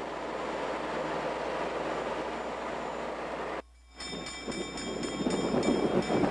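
A steady rumbling hiss, then after a brief cut a locomotive bell ringing, struck over and over in quick succession, over a louder low rumble.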